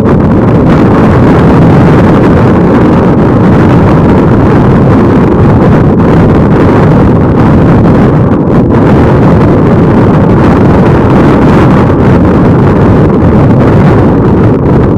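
Strong wind blasting the microphone, a loud, steady rumble with no break.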